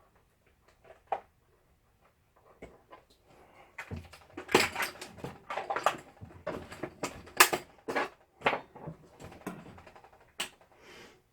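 A run of irregular sharp clicks and knocks, small hard objects being handled on a workbench, starting about three and a half seconds in.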